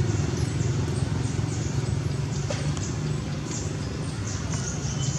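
A steady low rumble of an engine running, with faint brief high clicks or squeaks in the second half.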